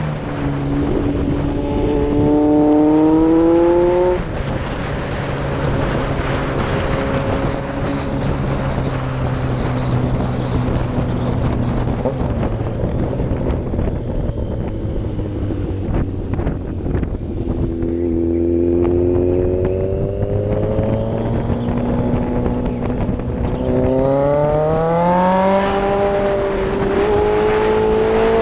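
Yamaha XJR1300's inline-four engine heard from the saddle over steady wind noise. It pulls up in pitch for a few seconds, drops back and runs steadily, easing off through a bend, then climbs again in a long acceleration in the second half.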